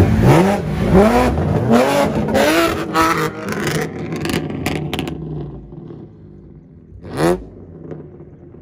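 A car accelerates hard away, the engine note rising again and again through quick gear changes. It fades with distance, with a few sharp cracks along the way. About seven seconds in, a short rev rises and drops away.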